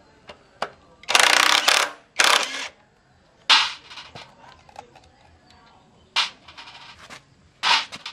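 Cordless impact wrench hammering bolts loose on a 15 hp diesel engine's cast-iron casing: two long rattling bursts about a second in, then shorter sharp bursts later.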